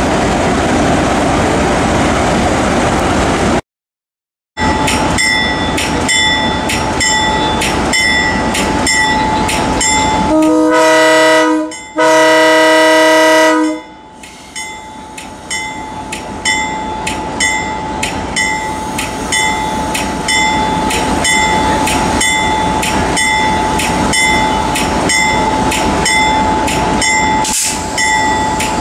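Diesel locomotive ringing its bell with steady strokes, about two a second, and sounding two loud blasts on its air horn about ten seconds in, the second blast a little longer. Before that, after a few seconds of general train rumble, there is a moment of silence.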